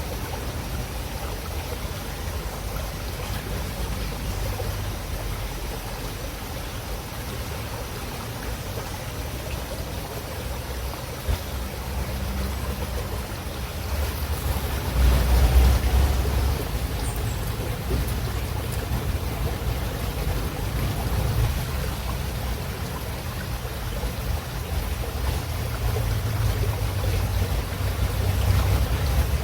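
Running river water, a steady rushing with a strong low rumble that swells louder for a few seconds about halfway through.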